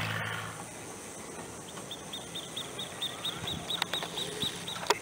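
A Cessna 182's engine noise dies away in the first second, leaving a rapid, even series of high animal chirps, about five a second, with a few sharp clicks.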